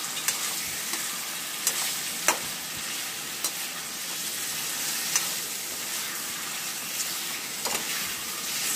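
Chicken pieces and whole spices sizzling in hot oil in a steel kadai, stirred with a perforated metal spatula that clinks and scrapes against the pan every second or two.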